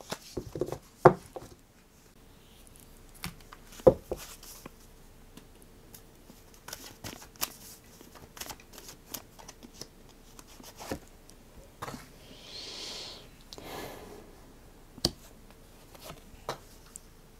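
Oracle cards handled and shuffled by hand, with scattered soft taps and flicks of the cards, a longer shuffling rustle about twelve seconds in, and a card laid down on the cloth near the end. A faint steady hum sits underneath.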